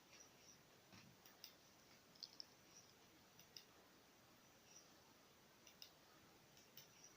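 Near silence with faint, irregular small clicks scattered through it.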